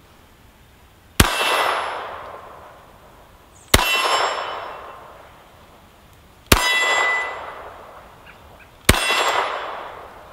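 Four single pistol shots, about two and a half seconds apart, each followed by a metallic clang that rings on and fades over about two seconds, as from a steel target being hit.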